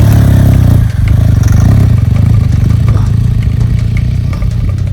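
Adventure motorcycle engine running hard under load on a steep dirt hill climb, easing off briefly about a second in and then pulling on.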